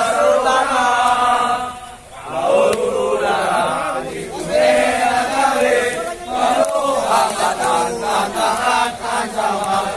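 A large group of young male police recruits chanting in unison, in sung phrases of a few seconds with short breaks about two and four seconds in.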